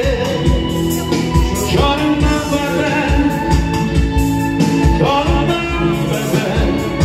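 A live pop-rock band playing over a PA system, with electric guitars, keyboard and a steady kick-drum beat, and a voice singing over them.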